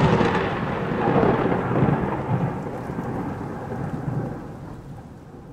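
A loud rumble starts suddenly, pulses in the first couple of seconds, then slowly dies away.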